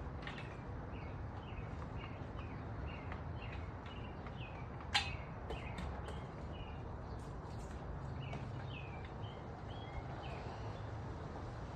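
A bird chirping repeatedly, short slurred notes about two a second, over a steady low outdoor rumble, with one sharp click about five seconds in.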